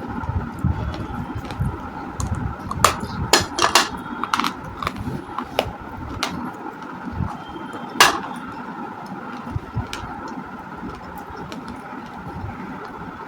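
Baked clay being bitten and crunched close to the microphone: a handful of sharp cracks, several in quick succession about three to four seconds in and the loudest about eight seconds in, over a steady low hum.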